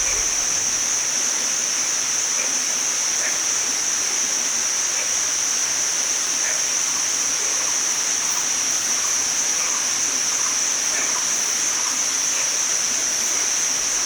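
Forest insect chorus: cicadas keep up one steady high-pitched drone, with short faint chirps of birds and frogs scattered through it.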